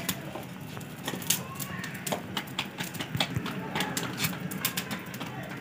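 Faint bird calls over scattered sharp clicks and taps.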